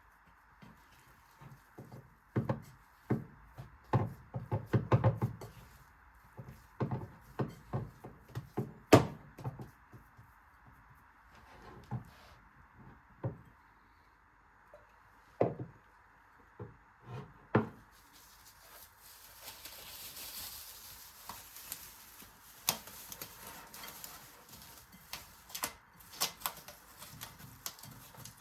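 Irregular knocks and clatter of objects being handled and set down, busiest in the first few seconds with one sharper knock about nine seconds in. From about eighteen seconds in, a soft hiss runs under fewer, lighter taps.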